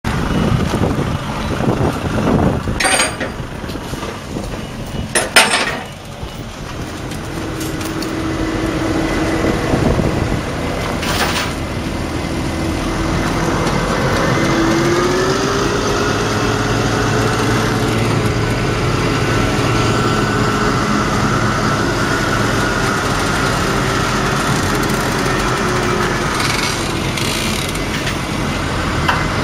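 2009 Fendt 820 Vario's 6.1-litre six-cylinder diesel engine running under load as the tractor climbs steel ramps onto a low-loader trailer. A few sharp clanks come in the first dozen seconds, the loudest about five seconds in, and the engine note rises about halfway through and holds steady.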